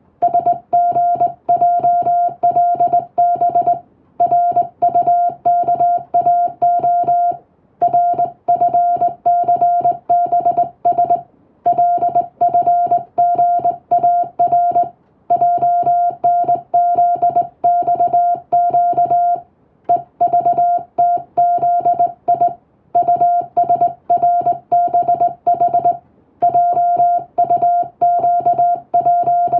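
Morse code (CW) in English, keyed as a steady mid-pitched beep broken into quick dots and dashes, with a short pause between groups every three to four seconds.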